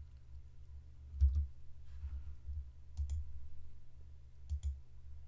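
Computer mouse clicking a few times, twice in quick double-click pairs, over a low steady hum.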